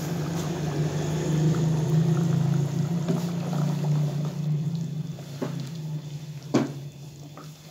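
Aloo gosht curry bubbling in a cooking pot while a spoon stirs through it, over a steady low hum that fades in the second half. A sharp knock comes near the end.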